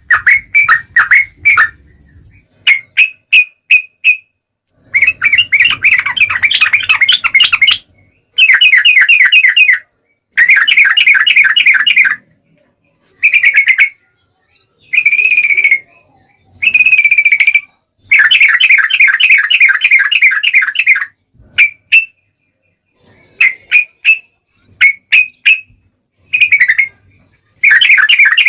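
Yellow-vented bulbul song: loud phrases of rapid, chattering notes, each lasting one to three seconds, broken by short pauses.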